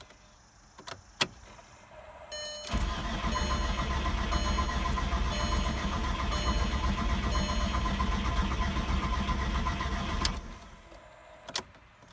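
Start attempt on a 2004 Volkswagen Jetta's turbocharged 1.8-litre four-cylinder, just rebuilt with a new cylinder head: after a few clicks the engine turns over steadily for about seven and a half seconds, then stops abruptly.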